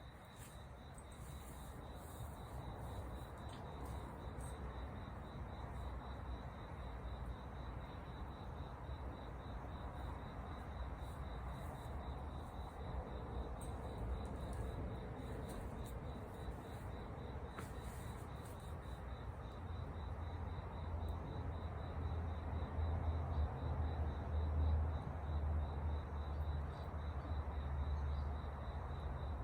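Insects, likely crickets, trill steadily in a high, fast-pulsing tone. A low rumble underneath grows louder about two-thirds of the way in.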